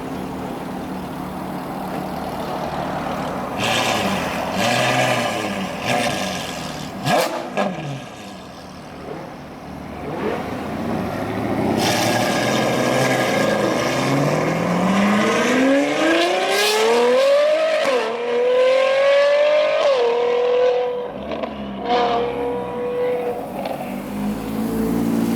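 Car engines and road noise: one car accelerates hard, its engine note climbing, dropping sharply at two gear changes, then holding steady. Earlier, other cars pass by.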